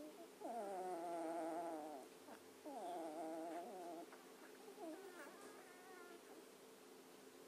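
Beagle puppies whining: three drawn-out, wavering whimpers, the last one weaker, over a faint steady hum.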